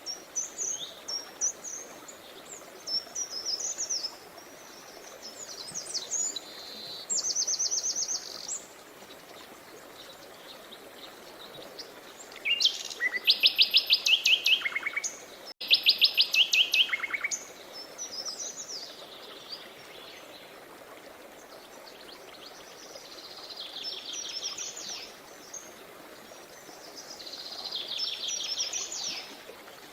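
Songbirds singing in short high phrases and rapid trills of fast repeated notes, loudest in two long trills about halfway through, over the steady rush of a river.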